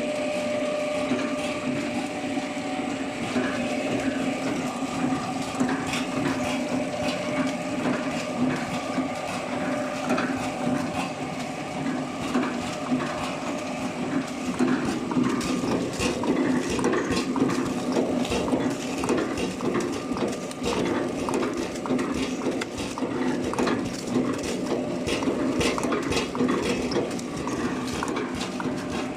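Horizontal flow-pack packaging machine running: a steady mechanical hum with many short clicks and clacks from its moving parts, busier in the second half.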